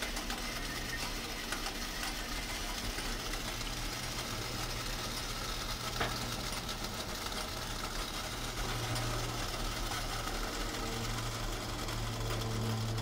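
A small motor running steadily, a constant low hum under an even hiss, cutting in suddenly.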